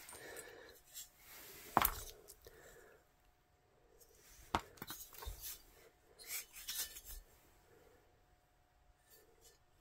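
Handling noise from cast-aluminium VW cylinder heads and a flashlight being picked up, turned over and set down: light clinks and knocks, the sharpest about two seconds in, another near the middle, and a cluster of softer clicks a little later.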